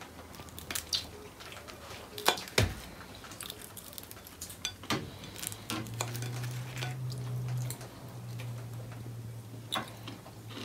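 Cutlery clinking and scraping on a plate while food is eaten: scattered light clicks, with a couple of louder knocks between two and three seconds in and another near five seconds. A low steady hum comes in at about five and a half seconds.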